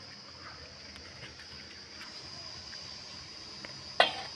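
Steady high-pitched insect drone, with a single sharp knock near the end.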